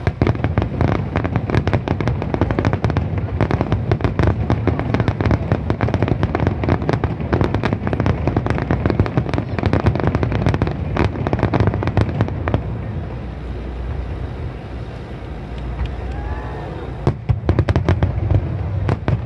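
Aerial firework shells going off in a rapid-fire barrage: a dense run of booms and crackles over a low rumble. It thins out a little past halfway, then a second quick volley of cracks comes near the end.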